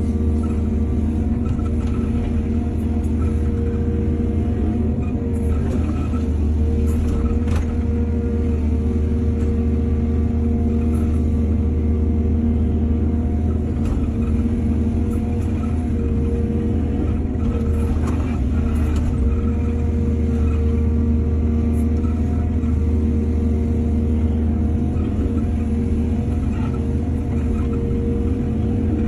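Excavator's diesel engine running at a steady, constant speed, with a few faint clanks.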